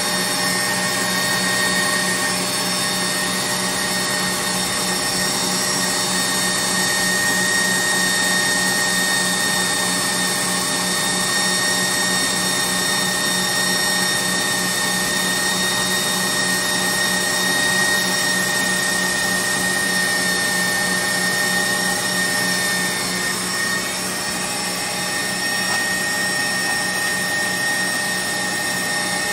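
KitchenAid stand mixer motor running steadily under load, driving the Gourmet Pasta Press attachment as it extrudes noodles. It is an even motor hum with a steady high whine.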